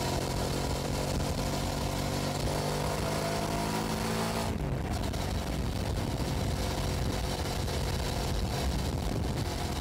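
2006 Hyosung GT650S V-twin motorcycle engine running at steady road speed, heard from a camera mounted on the bike with wind rush over it. About halfway through, the steady engine note breaks off and gives way to a rougher, less even sound.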